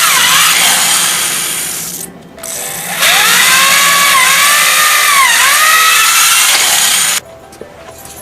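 Cordless electric drill drilling holes through sheet metal: the motor whine fades out about two seconds in, then starts again and runs until about seven seconds in, its pitch dipping twice as the bit bites into the metal.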